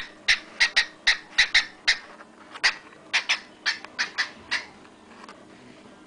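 Male cockatiel giving a quick run of about fourteen short, sharp chirps, a few a second, stopping about four and a half seconds in.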